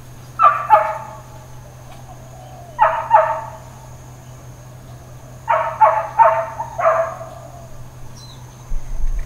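Dog barking in short bouts: two barks, two more about two seconds later, then a quicker run of four.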